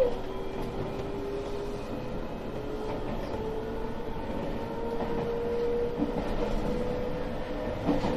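JR Shikoku 7000 series electric railcar running along the line, heard from the driver's cab, its motor whine rising slowly in pitch as the train gathers speed. A few faint clicks from the wheels over rail joints.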